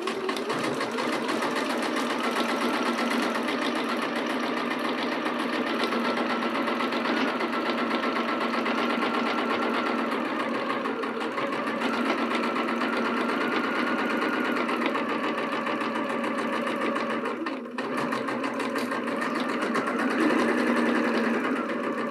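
Janome Horizon Memory Craft 9400QCP computerized sewing machine running steadily at its medium speed setting, sewing a straight stitch through heavy denim, with a brief pause about three quarters of the way through.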